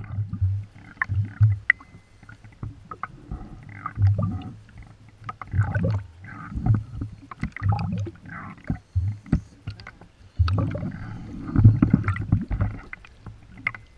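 Small sea waves slapping and sloshing against a camera held at the water surface, with irregular deep thumps and gurgling splashes as the water washes over it.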